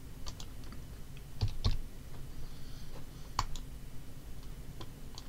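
Computer keyboard and mouse clicking: a handful of separate keystrokes and clicks spaced irregularly, the sharpest a little past three seconds in.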